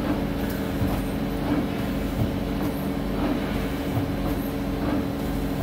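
Mazak SQT-250 MSY CNC lathe running with a steady mechanical hum, with soft knocks every half second or so as its tool turret indexes from station to station.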